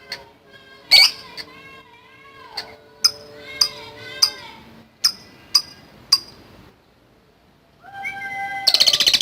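Lovebird calling: a string of sharp single chirps, a short pause, then near the end a loud, rapid rattling trill breaks out, the long 'ngekek' chatter.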